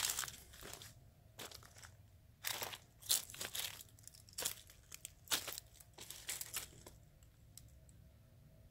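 Footsteps crunching on gravel and dry leaves, irregular, stopping about seven seconds in.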